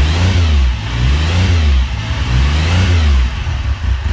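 Motorcycle engine being revved, the engine note rising and falling about three times.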